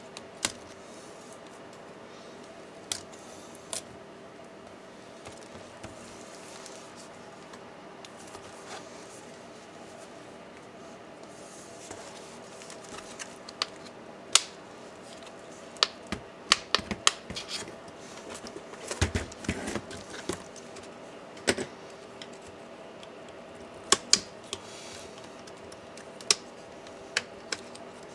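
Scattered sharp plastic clicks and knocks from the MSI GP63 Leopard laptop's case parts being handled and pulled apart by hand during disassembly, sparse at first and busier in the second half, over a faint steady hum.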